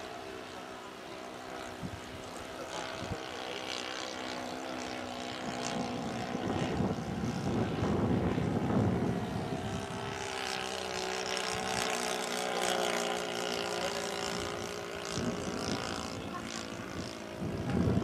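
Saito FA-62 four-stroke glow engine of a model airplane in flight, turning a 13x6 propeller. It drones steadily, its pitch drifting slowly up and down as the plane passes, and it is loudest about halfway through.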